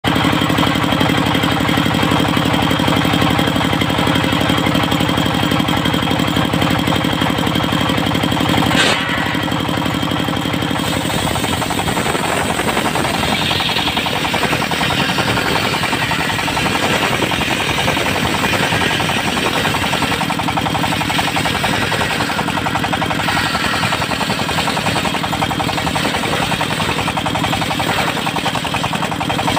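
Engine-driven circular sawmill running, with a fast steady engine beat. About nine seconds in the sound changes abruptly, dropping in the low end and turning noisier and less even.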